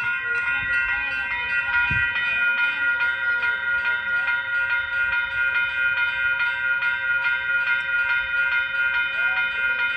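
Railroad crossing warning bell ringing steadily with rapid, even strikes, about three a second, while the crossing is active ahead of an approaching train.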